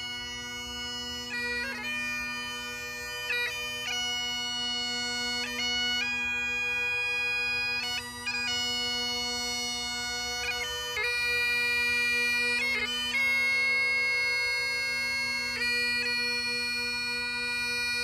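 Bagpipes playing a tune over their steady unbroken drone. Each melody note is held about a second or two, with quick flicked ornament notes between them.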